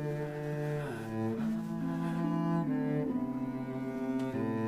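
Background music: a slow melody of long held notes in low bowed strings, such as cello.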